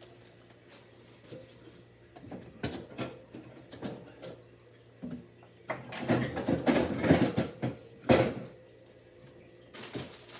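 Food containers and bags being handled and packed into a refrigerator: scattered knocks, a dense stretch of clattering and rustling about six seconds in, and one loud knock about eight seconds in, over a faint steady hum.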